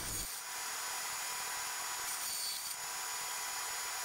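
Bandsaw running, its blade cutting through a strip of 3/4-inch cabinet-grade plywood, with a brief brighter hiss of the cut about two seconds in.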